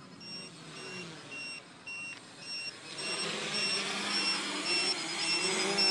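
Quadcopter's electric motors and propellers buzzing, faint at first, then louder from about three seconds in as it comes down closer, the pitch wavering with throttle. A steady electronic beep repeats about twice a second throughout.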